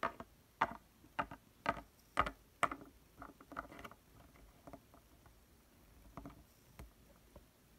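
A plastic Littlest Pet Shop toy figure is tapped down on the floor as it is hopped along by hand. The light taps come about two a second and thin out after about three seconds.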